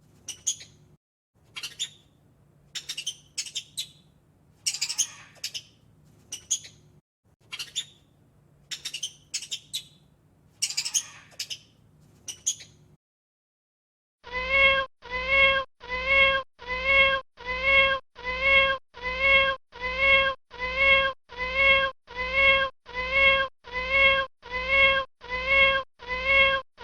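A cat meowing over and over at an even pace, about one and a half meows a second, from about halfway through. Before that come short, high chirps or squeaks over a faint low hum.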